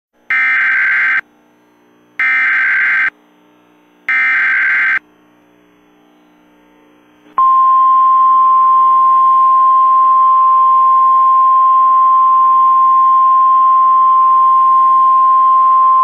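NOAA Weather Radio Emergency Alert System signal: three short bursts of SAME digital header data, each just under a second long and about a second apart, then the steady single-tone warning alarm starting about seven seconds in. Together they announce a Civil Emergency Message.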